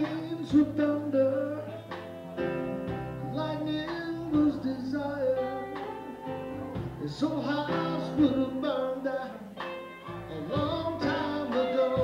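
Live band music: a man singing with guitar accompaniment.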